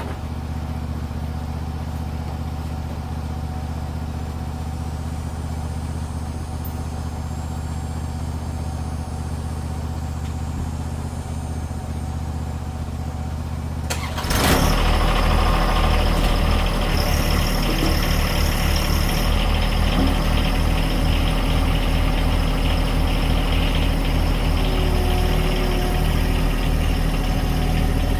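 An engine idling steadily. About halfway through, after a sudden sharp change, it runs louder with more rattle and hiss.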